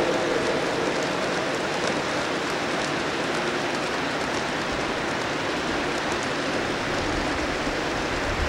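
A long string of G scale freight cars rolling along outdoor garden-railroad track: a steady rushing hiss of many wheels on rail, with faint scattered clicks.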